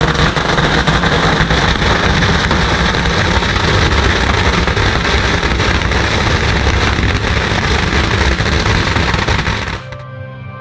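A long string of Chinese firecrackers going off in a rapid, continuous crackle, cut off abruptly near the end and followed by soft music.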